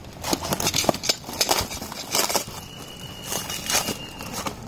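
A snap-off box cutter slitting open small cardboard firework boxes, then the cardboard crackling and scraping as one box is pulled open. The sound is a string of irregular short scrapes and clicks.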